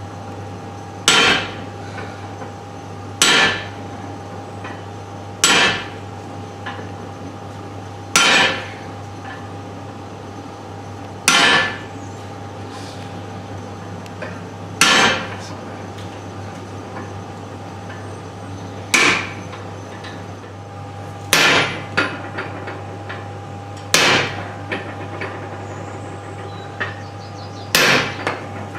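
Hand hammer blows on hot stainless steel as the figure's face is forged, about ten separate ringing strikes spaced a few seconds apart. A steady hum runs underneath.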